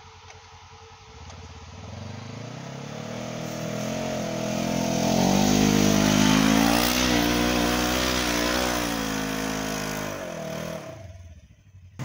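Polaris General 1000 side-by-side's engine working hard as it pushes through deep snow, its pitch wavering up and down, with a hiss of tyres churning snow. It grows louder as the machine passes close by about halfway through, fades, and cuts off abruptly near the end.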